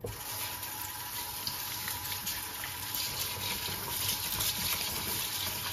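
Kitchen tap running into a steel bowl of sushi rice, filling it with rinse water, a steady rush with a faint steady whine underneath.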